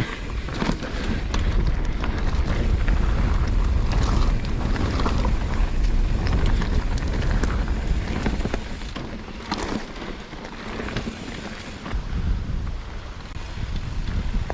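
Mountain bike riding over a rocky trail, with low wind rumble on the microphone and frequent sharp knocks and rattles from the bike.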